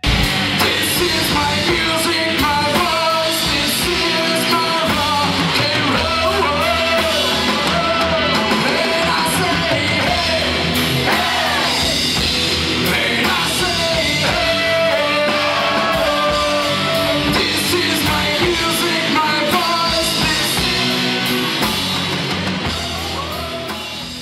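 Loud rock music from a band with electric guitars, drums and yelled singing. It starts abruptly and fades out over the last couple of seconds.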